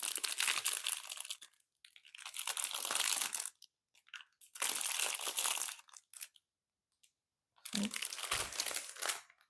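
Small plastic bags of diamond-painting drills crinkling as they are handled, in four bursts of a second or two each.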